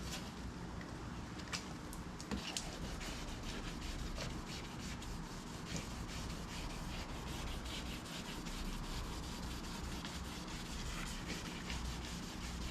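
Hand wet-sanding with 2000-grit sandpaper on a soft sanding block, with soapy water over a painted bumper: steady back-and-forth rubbing.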